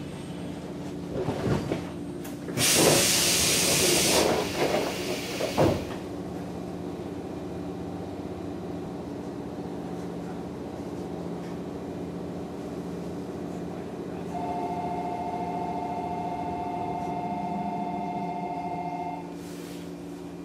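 JR 115 series electric train standing at a station platform: a loud hiss of released air for about a second and a half some three seconds in, with clicks around it, over a steady low hum of the train's equipment. Near the end a steady two-note electronic tone sounds for about five seconds.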